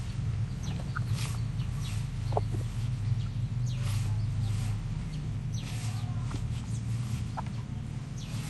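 A hand mixing flour and water into dough in a plastic bowl: soft, irregular squelching and scraping, over a steady low hum.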